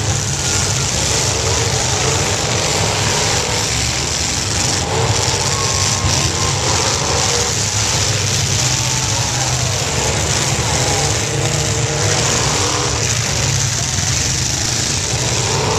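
Several demolition derby car engines running and revving together: a loud, steady rumble with no single clear crash standing out.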